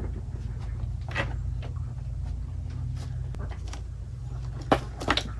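Steady low hum with scattered light clicks and knocks of parts being handled, the loudest few knocks near the end.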